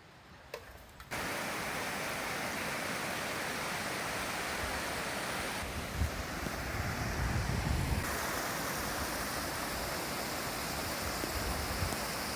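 Steady rush of flowing river water, coming in suddenly about a second in and holding even, with a few low rumbles near the middle.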